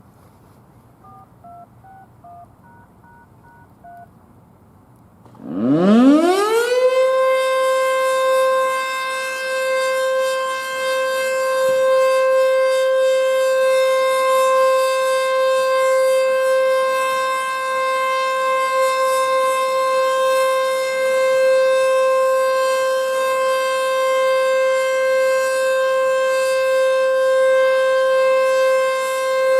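A few faint two-tone beeps, then an ACA Screamer S-5 outdoor warning siren winds up quickly about five seconds in. It reaches full pitch within a second or two and holds one steady high tone: the steady Alert signal of its weekly test.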